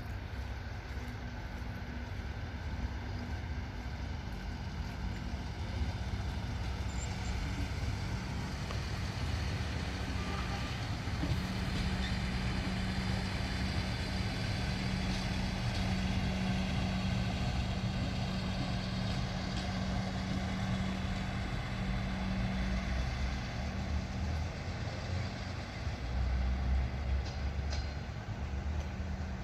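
Passenger train pulling out of the station, with a steady low rumble and a droning hum that grows stronger midway. A few faint clicks come near the end.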